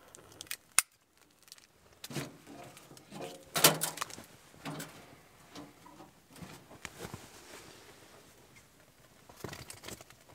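Rustling, crackling and scraping as kindling is worked into a small portable wood stove and lit, with two sharp clicks about half a second in and the loudest scrape near the middle.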